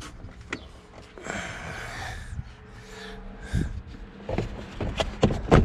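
Plastic lower dashboard trim panel of a 2006 Nissan X-Trail being worked loose by hand. It scrapes and rustles about a second in, then gives a run of sharp clicks and knocks as it comes free, the loudest knock near the end.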